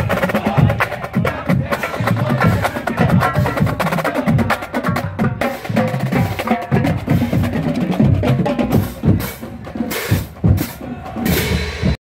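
Marching band drumline playing a marching cadence: snare drums, tenor drums and bass drums in a fast, steady rhythm with sharp stick clicks and cymbal crashes.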